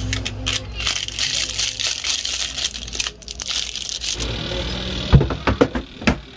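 Crinkling, rustling handling noise for about three seconds, then a few sharp knocks and clicks near the end.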